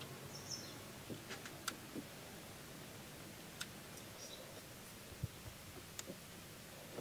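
Faint, scattered small clicks of a screwdriver and terminal screw as the positive cable is tightened onto a scooter battery terminal.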